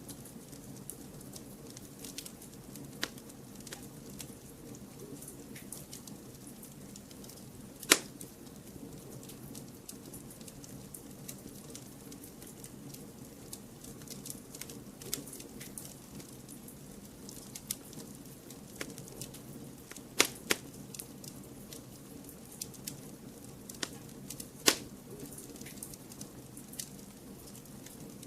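Campfire crackling: scattered sharp pops and snaps over a low, steady sound of burning, with three much louder pops about eight seconds in, about twenty seconds in and near twenty-five seconds.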